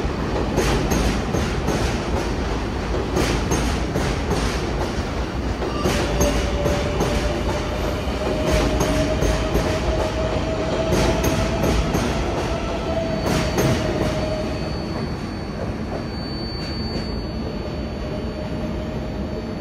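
R188 subway train running on the 7 line, its wheels clicking rhythmically over the rail joints. A steady whine joins in about six seconds in and stops around fifteen seconds. The clatter thins out near the end.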